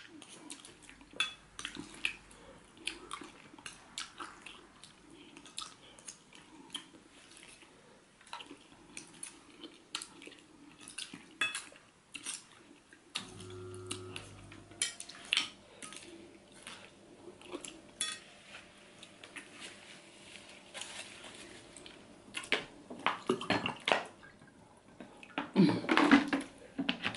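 Close-up eating sounds: a plastic spoon scraping and clicking against a plate, mixed with chewing and sucking on catfish-head pepper soup, in scattered short clicks. It gets louder near the end, as she licks the spoon and smacks her lips.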